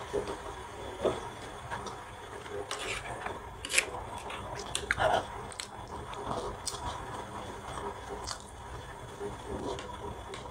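Close-miked chewing of a mouthful of spicy aloo nimki, with short wet mouth clicks and smacks scattered throughout, a couple of louder ones about halfway through.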